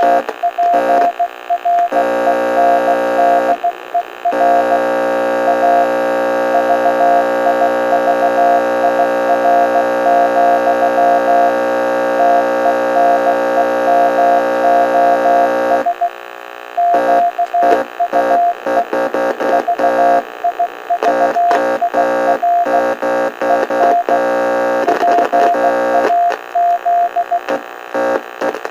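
Morse code on a radio: a single beeping tone keyed on and off in short and long marks, over a buzzing radio drone that holds steady for the first half, then cuts in and out.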